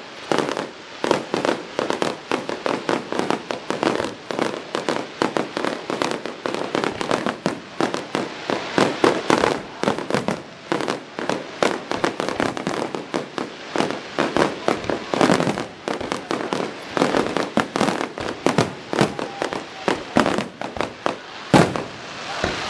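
Fireworks display: aerial shells bursting in a dense, continuous barrage of bangs, several a second.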